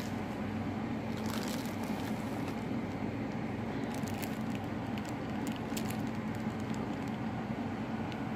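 Plastic bag holding an aquarium plant crinkling as it is handled, with scattered small crackles, over a steady low hum.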